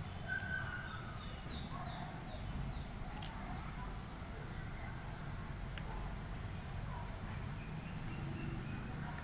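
Quiet outdoor background: a steady high-pitched insect drone, with a few faint, short bird calls in the first couple of seconds.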